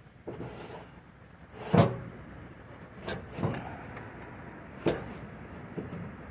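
A few hard knocks and clunks, the loudest a little under two seconds in and the others about three and five seconds in, like metal parts being handled or set down.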